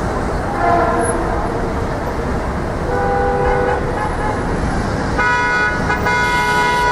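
Busy city traffic: a steady rumble of engines and tyres, with vehicle horns honking three times. There is a short honk about half a second in, another around three seconds, and a louder honk held for nearly two seconds near the end.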